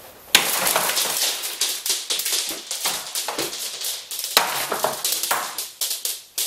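A rapid, irregular run of crunching and banging impacts, something being smashed and broken apart. It starts suddenly about a third of a second in and keeps going, with a few short pauses.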